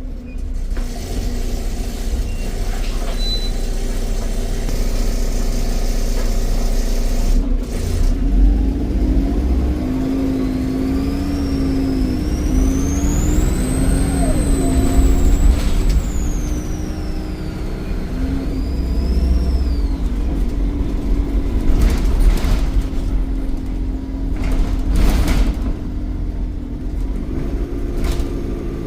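Volvo B7RLE bus's D7E 7.1-litre diesel engine pulling under load, its turbocharger whistling: the whistle rises to a high pitch about halfway through, holds, then falls away, with a shorter rise and fall a few seconds later. A few short sharp bursts of noise stand out over the engine, the last two near the end.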